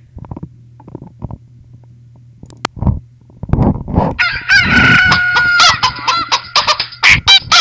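Chicken ringtone played back through an iPhone's speaker: loud recorded chicken calls with bending, gliding pitches start about three and a half seconds in, after a few faint clicks over a low hum.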